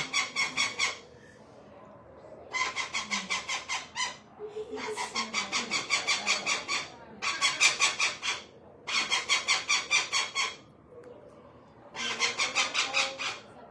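A pet parrot screaming in harsh, rapidly pulsed calls, about six pulses a second, in six runs of one to two seconds with short pauses between. These are the distress screams of a bird being handled for microchipping.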